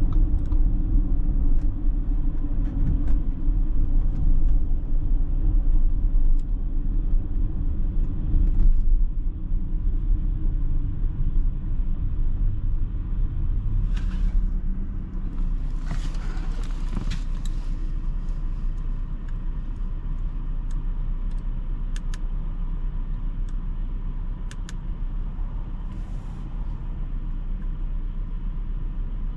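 Low, steady road and drivetrain rumble inside the cabin of a 2021 Audi Q8 on the move, getting quieter about halfway through as the car slows. A short hiss comes in the middle, and a few faint clicks follow near the end.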